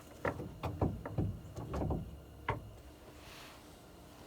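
A quick run of knocks and clunks, seven or eight in about two and a half seconds, followed by a pause.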